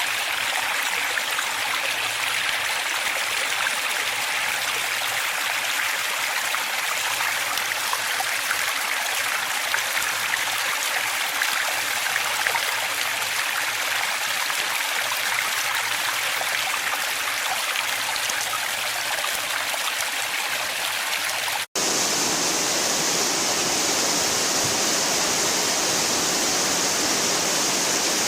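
Water running steadily in a stream, a dense babbling rush. About two-thirds of the way through it cuts off abruptly and switches to a different, hissier and slightly louder rush of water.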